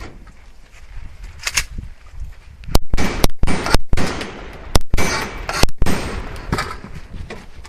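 A string of shotgun shots fired in quick succession, several within a few seconds, each with a trailing echo.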